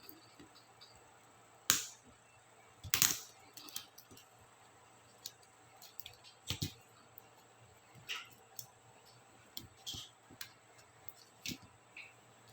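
Small plastic clicks and snaps from laptop keycaps and their clips being worked loose, irregularly spaced, the two loudest close together a couple of seconds in.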